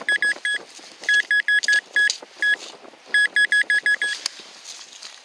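Handheld metal-detector pinpointer beeping in quick runs of short, high beeps, about five or six a second, with a few single beeps between the runs, as its tip is worked through the soil and grass. The beeping signals a small metal target close to the tip. Faint scraping of soil and grass between the beeps.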